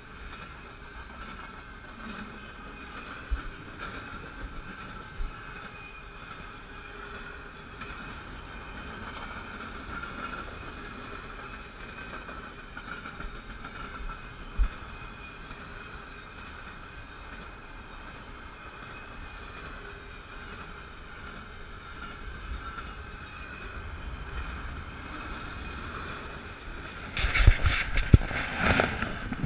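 Double-stack container freight train rolling past on the rails, a steady rumble with a lasting high wheel squeal and a few faint knocks. Near the end, loud irregular rustling and thumps.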